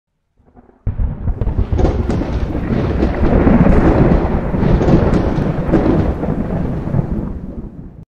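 Intro sound effect of a deep, thunder-like rumble that starts suddenly about a second in and fades out near the end.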